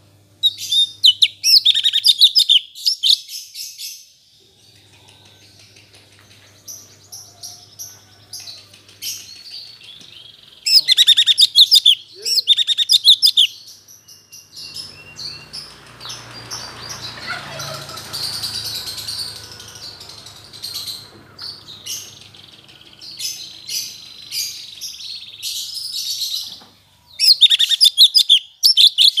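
Cucak cungkok songbird singing in loud bursts of rapid, warbling chirps, with fainter scattered calls between them; the song is that of a bird still relearning its notes after moulting.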